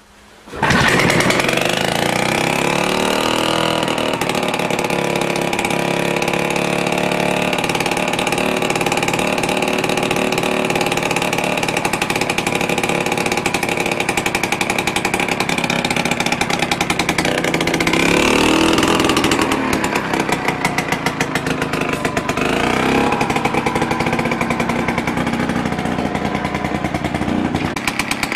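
1949 Simar 56 rototiller's petrol engine catching on a pulley pull-start from cold about half a second in, revving up over the next couple of seconds and then running steadily. Its speed rises and falls briefly a couple of times later on.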